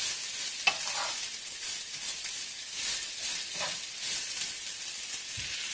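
Sliced onions and bell peppers sizzling steadily in olive oil in a frying pan, with a wooden spoon scraping the pan now and then as they are stirred.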